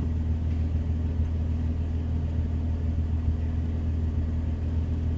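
Toyota Tacoma's engine idling steadily, a low even rumble heard from inside the cab while the truck sits still.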